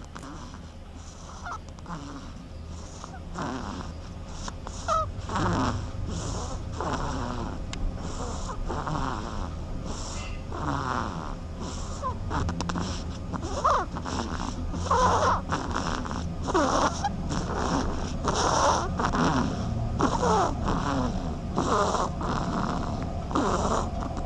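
A duckling snoring: a steady run of short, rasping snoring breaths, about one or two a second, growing somewhat louder over the stretch.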